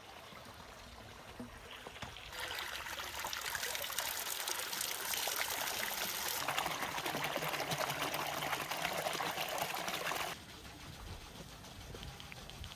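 Water gushing from a stone fountain spout and splashing over a metal tray of vegetables as they are rinsed under it. It starts about two seconds in, turns heavier and lower partway through, and cuts off suddenly near the end.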